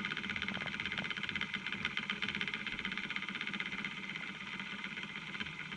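Fidget-spinner pulse motor on an SSG circuit running at high speed: a steady, very rapid buzzing rattle from the spinner on its bearing and the pulsing drive. There is a fair bit of vibration, the spinner shaking on its bearing at this speed.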